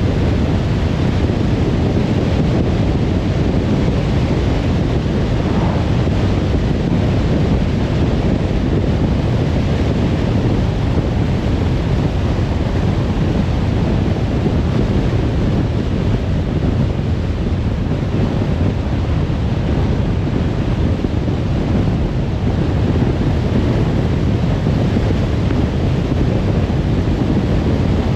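Steady road and wind noise of a car driving at speed on a motorway, a constant low-heavy rush with no breaks.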